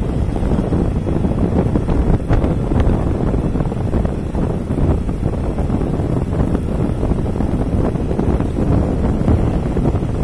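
Wind buffeting the microphone of a phone carried on a moving vehicle, a steady low rumble with road and traffic noise underneath.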